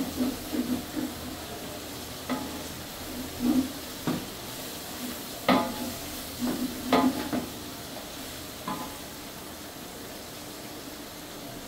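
Wooden spatula stirring and scraping in a large aluminium pot, in irregular strokes that stop about nine seconds in, over a steady sizzle of food frying in oil.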